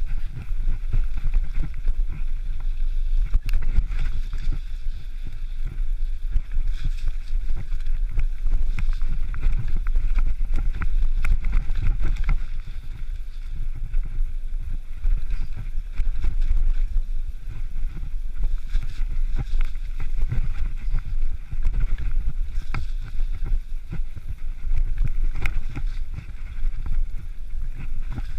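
Mountain bike descending a rough, rocky track: a steady low rumble of tyres and wind with frequent sharp rattles and knocks as the bike runs over stones.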